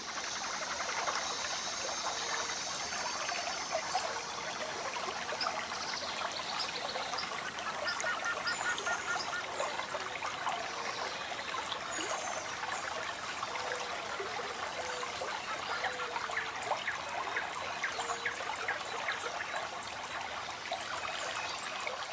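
Creek rapids: water running over rocks in a steady, splashing wash, with a few short high chirps over it now and then.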